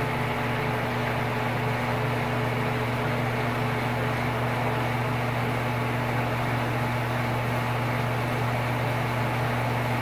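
Old Sears Kenmore stackable washing machine running its drain: the motor and pump give a steady hum with a few fixed tones as the water is pumped out of the tub. It runs without the thrashing racket, its broken tub-support spot welds having been welded and bolted.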